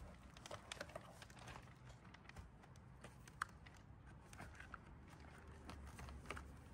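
Near silence with faint, scattered clicks and light taps of plastic bumper tabs and clips being worked loose, over a low hum; one sharper click about halfway through.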